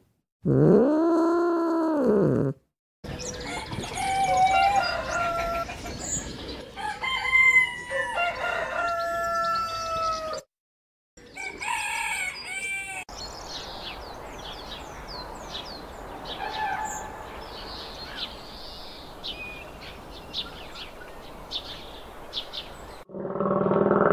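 Roosters crowing and chickens calling and clucking, in several short separate clips; one crow rises and falls over about two seconds. After that comes a longer stretch of steady hiss with small birds chirping quickly and high.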